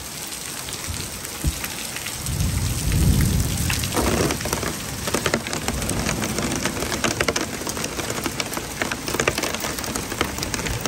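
Heavy rain mixed with hail pelting pavement and parked vehicles: a dense steady hiss full of sharp ticks from hailstones and drops. A low rumble swells and fades about two to three seconds in.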